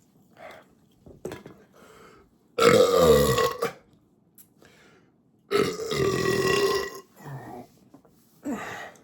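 A man belching: two loud belches, each over a second long, with a few short, quieter sounds before, between and after them.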